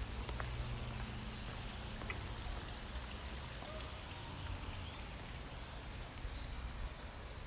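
Outdoor park ambience: a steady soft hiss over a low rumble, with a few faint irregular taps and faint chirps.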